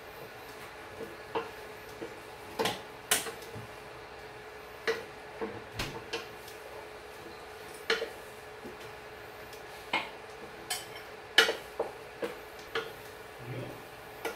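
A spatula stirring sautéed tuna in a stainless steel pot, knocking and scraping against the pot's side and bottom in irregular clinks about once or twice a second, over a steady faint hum.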